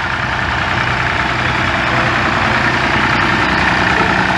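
Vintage tractor engine running as the tractor drives slowly past close by, growing a little louder as it nears.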